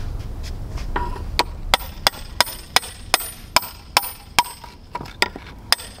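Hammer striking a steel chisel wedged under the edge of a granite capping slab: a quick, even run of sharp metallic taps, about three a second, starting about a second in. The light, steady strokes work the slab loose slowly so that it does not crack.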